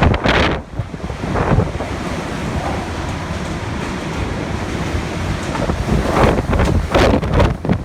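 Typhoon wind blowing hard and buffeting the microphone, with strong gusts at the start, about a second and a half in, and several more near the end.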